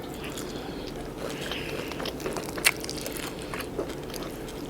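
A person eating close to the microphone: chewing and biting food with small crunchy clicks, one sharper crunch about two and a half seconds in.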